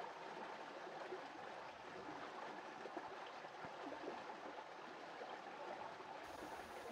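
Shallow stream flowing over rocks: a faint, steady rush of running water.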